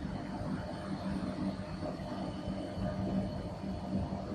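A machine running steadily with a low hum and a low tone that pulses on and off.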